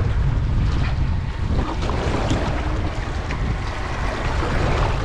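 Wind buffeting the microphone with a steady low rumble, over choppy sea water slapping and splashing against the side of a small boat.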